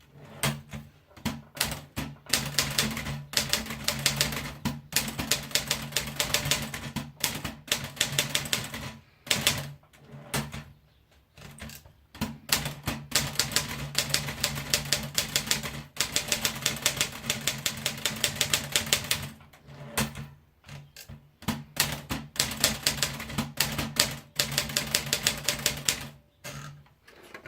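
Olivetti Studio 44 manual portable typewriter being typed on: fast runs of sharp key strikes, broken by a few short pauses.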